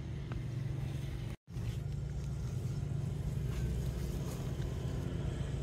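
A steady low motor rumble, cut off by a brief dropout to silence about a second and a half in, then running on unchanged.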